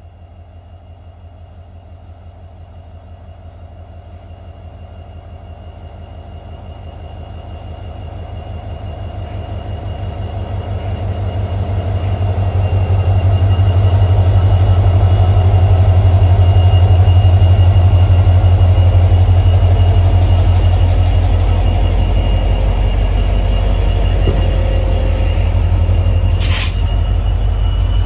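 Diesel train riding behind a WDP4 locomotive, its EMD 16-cylinder two-stroke engine humming with a deep, rhythmic pulse and a faint steady whine. The sound grows steadily louder over the first half and then holds loud. A couple of sharp knocks come near the end.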